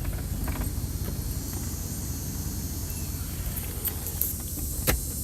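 1998 GMC Yukon's engine idling, a steady low rumble heard from inside the cab, with a few light clicks and one sharper click near the end.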